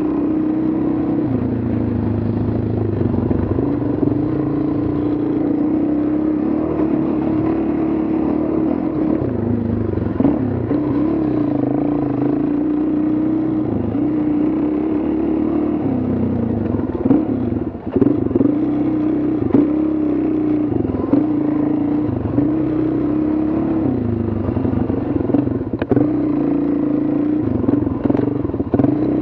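Dual-sport motorcycle engine running along a dirt trail, its pitch rising and falling with the throttle, with a few sharp knocks and rattles as the bike goes over bumps.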